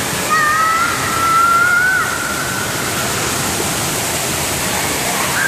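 Steady rush of water from a pool spray fountain splashing into an indoor pool. About half a second in, a high held tone rises slightly and fades after about two seconds.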